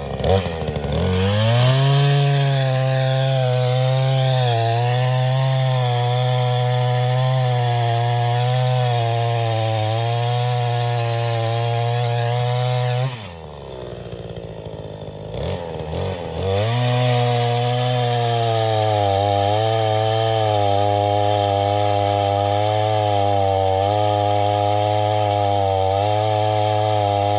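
Craftsman chainsaw running at full throttle through a cut into a silver maple trunk, its pitch wavering slightly under load. It drops back to idle about halfway through, then revs up into a second cut, as for the two cuts of a felling notch.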